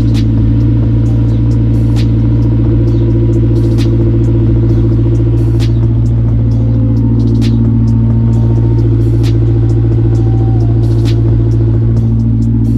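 Honda S2000's 2.0-litre four-cylinder idling steadily, with irregular sharp ticks every second or two: an exhaust leak where the pipe has come apart at a joint, its bolts and gasket missing.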